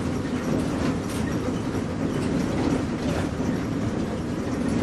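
Inside a moving bus: steady engine and road rumble, with the body rattling and a couple of sharp clacks.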